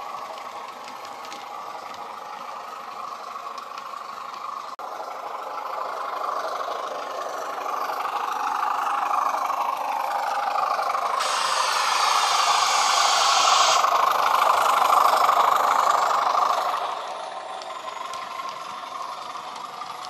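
Class 20 diesel engine sound from an ESU hifi sound decoder, played through the small speaker of a Bachmann model locomotive. The engine note grows steadily louder as the model runs toward the camera, with a few seconds of hiss in the middle. It drops back suddenly near the end as it passes.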